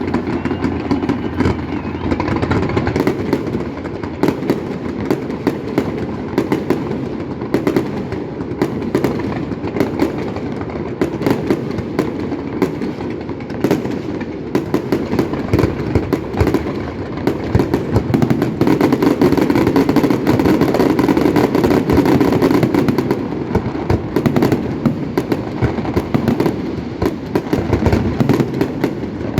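A fireworks display going off without a break: rapid bangs and crackles over a steady low rumble, heaviest a little past the middle.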